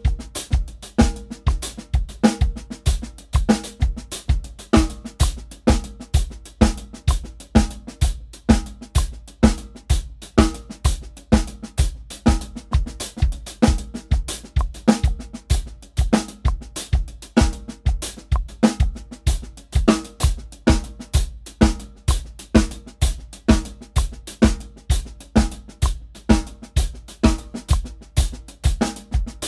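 Drum kit played at 128 BPM in an even, continuous pattern of snare, bass drum and hi-hat strokes. It alternates four-bar time grooves with four-bar single paradiddle permutations in eighth-note triplets.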